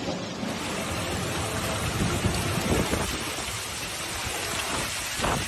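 Heavy storm rain pouring down steadily, with a couple of brief louder swells.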